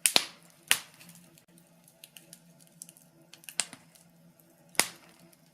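Wood fire crackling in a fireplace: faint small ticks and several sharp pops of burning logs, the loudest pair right at the start.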